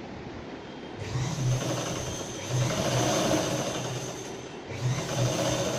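Sewing machine running to wind thread onto a bobbin held on a screwdriver at the handwheel. The running starts about a second in, drops off briefly near the end and picks up again.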